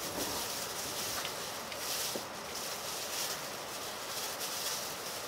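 Steady running noise inside an N700A Shinkansen passenger car: an even rushing hiss of air and rail noise with a low rumble underneath.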